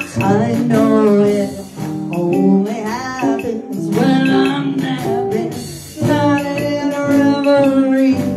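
Live band music: a vocalist sings phrases over strummed acoustic guitar, with short breaks between the lines.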